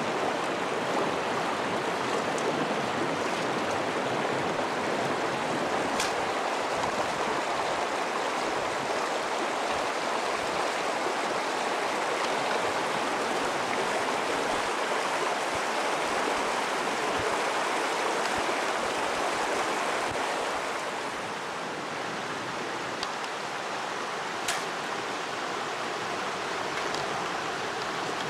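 Shallow, rocky river rushing over stones: a steady rush of flowing water that eases slightly about two-thirds of the way through.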